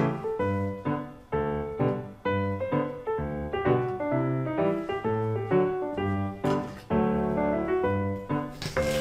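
Background piano music: a light keyboard tune with evenly paced notes. A knife strikes the cutting board sharply twice near the end, cutting through an onion.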